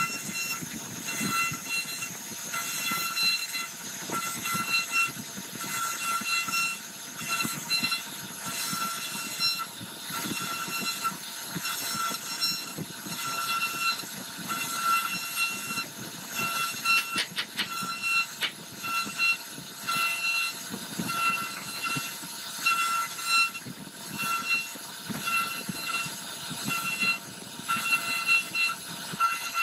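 CNC router spindle carving a wood panel: a steady high-pitched whine of several tones that swells and fades every second or so as the bit takes its cuts, over a rough cutting hiss.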